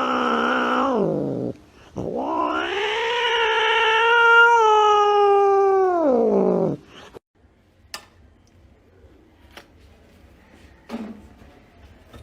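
A cat yowling in two long, drawn-out calls. The second lasts about five seconds and rises, then falls in pitch. A few faint knocks follow.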